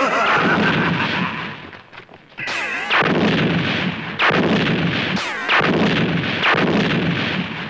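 A series of staged explosions: about five sudden blasts, each fading away before the next. A short falling whistle comes just before one of them, about two and a half seconds in.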